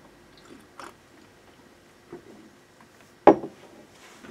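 A few faint handling noises, then one sharp knock about three seconds in: an object set down on a desk.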